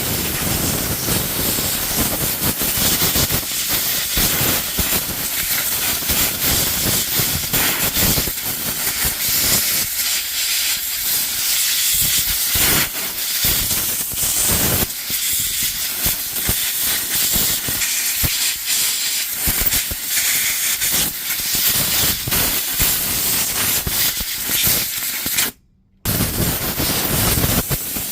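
A loud blast of compressed air blowing dust out of the opened DeWalt DCS355 oscillating multi-tool's motor and switch area, a steady rushing hiss with a rough, fluttering edge. It stops briefly once near the end, then starts again.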